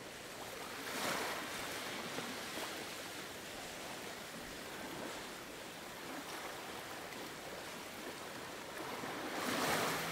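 Ocean surf: a steady wash of noise that swells about a second in and again near the end, like waves breaking.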